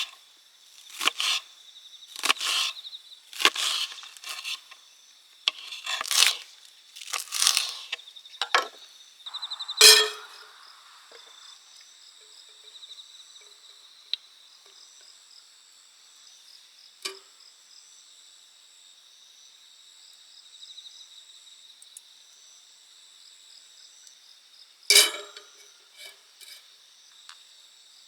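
Autumn insects chirping steadily in high, pulsing tones, over a run of about nine short scraping or chopping strokes, roughly one a second, through the first ten seconds, and one more stroke near the end.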